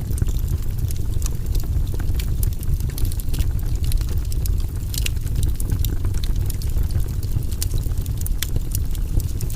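Wood campfire crackling, with frequent small sharp pops scattered irregularly over a steady low rumble.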